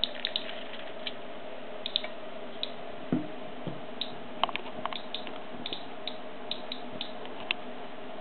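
Nuclear Enterprises RM6 ratemeter with a BP7 beta probe clicking irregularly, about two or three clicks a second, as it counts beta particles from the potassium-40 in potassium chloride diet salt: a low, background-level count rate. A faint steady hum runs underneath, and a softer knock comes about three seconds in.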